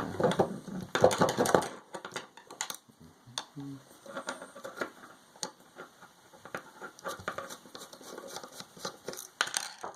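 Small plastic and metal parts of a Dremel 300 rotary tool being handled and pulled apart by hand: a dense run of clicks and rattles in the first two seconds, then scattered light clicks and scrapes.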